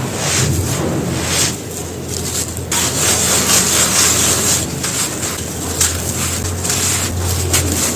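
Hands crumbling and crushing a dry, brittle material such as chunks of cement or charcoal: continuous gritty crackling and rubbing, with brief louder crunches here and there.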